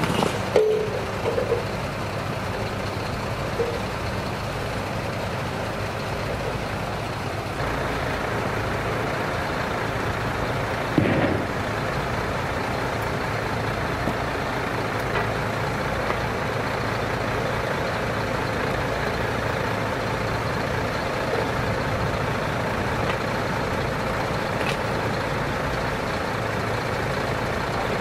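Crane truck's diesel engine running steadily to drive its hydraulic crane, growing louder about seven seconds in, with a sharp knock about eleven seconds in.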